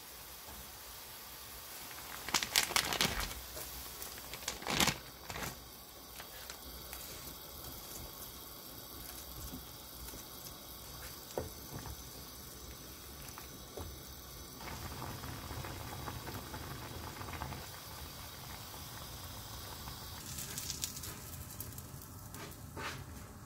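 Broth boiling in a pot, a steady bubbling. Brief clattering knocks stand out about two and a half and five seconds in.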